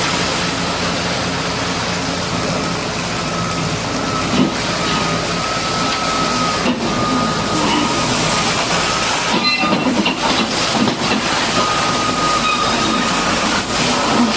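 High-pressure water spray hissing steadily while a bulldozer is washed, with an engine running underneath and a thin whine that comes and goes.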